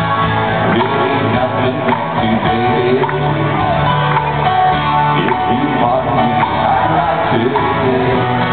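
Live band playing an amplified song, with guitar and vocals.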